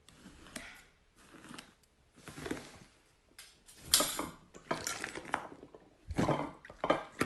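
Slime being pressed and squished by hand, making short crackling, clicking bursts about once a second that grow louder about halfway through.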